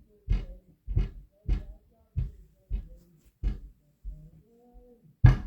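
Stomping on a floor in an adjoining unit: a steady run of dull thuds about every 0.6 seconds, the last and loudest a little past five seconds in. A faint muffled voice sounds between the later thuds.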